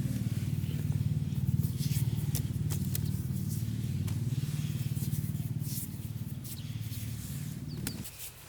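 A small engine running steadily with a fast even chugging, then cut off abruptly about eight seconds in, with a few light clicks and scrapes over it.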